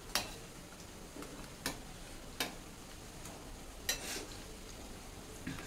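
Urad dal vadas deep-frying in hot oil in a steel kadai with a low steady sizzle, while a perforated steel skimmer clinks sharply against the pan five times as they are turned.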